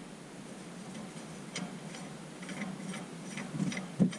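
Scattered light clicks and ticks of metal parts as a shift knob and its set screw are fitted onto the shifter. The clicks are irregular and come more often in the second half.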